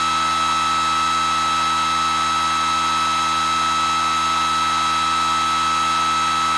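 Battery-driven pulse motor running at high speed: a steady high-pitched electric whine with many overtones, holding the same pitch throughout.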